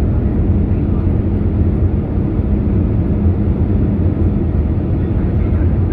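Airliner cabin noise during the landing approach, heard from a window seat beside the wing: a steady low rumble of the turbofan engines and airflow, with a faint even hum underneath.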